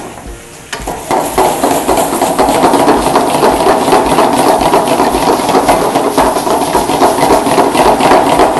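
Beef strips, onion and tomato sizzling and crackling in a hot wok over a high gas flame, stirred and tossed with a wooden spoon. The sizzle starts about a second in and cuts off suddenly at the end.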